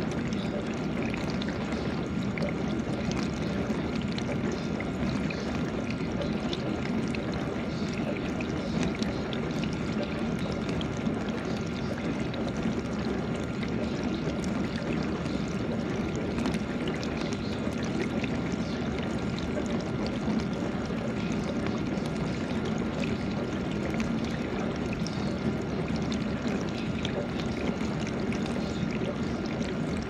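GE dishwasher running, with a steady rush and splash of water spraying inside the tub and a faint steady high tone underneath.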